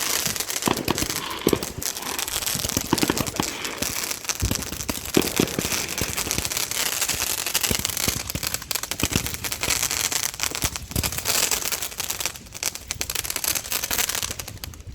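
Fireworks going off: a continuous dense crackle with many sharp pops and bangs.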